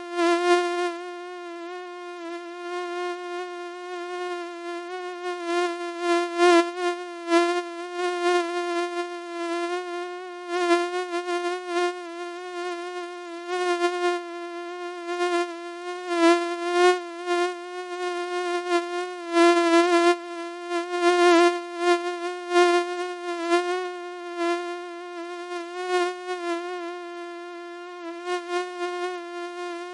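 Mosquito buzzing: a steady whining hum with many overtones, its pitch wavering slightly, growing louder and softer again and again as if flying close past the ear.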